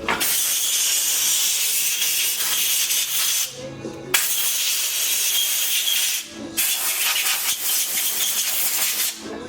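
Abrasive cloth or sandpaper scrubbing the crankshaft's rod journals, a steady rough hiss in three long stretches with two brief pauses. This is light dressing of the journals to clean up discoloration and a groove.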